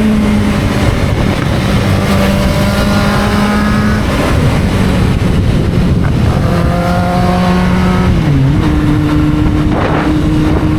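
Kawasaki Z750's inline-four engine running at steady riding revs under heavy wind rush. A little over eight seconds in, the engine note dips and settles at lower revs.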